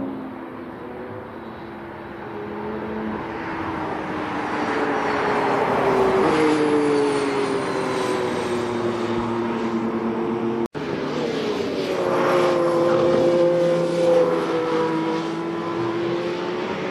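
Mercedes-AMG One's turbocharged 1.6-litre V6 engine driving past at speed, the note climbing as the car nears and then sliding down in pitch as it goes by. The sound cuts out for an instant about ten seconds in, and a second pass follows with the same rise and fall.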